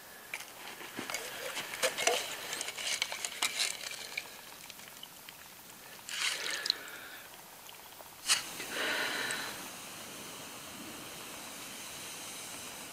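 Water poured from a soft plastic bottle into a cooking pot, with the bottle crinkling and clicking as it is handled. A sharp click comes about eight seconds in, and a steady faint hiss follows near the end.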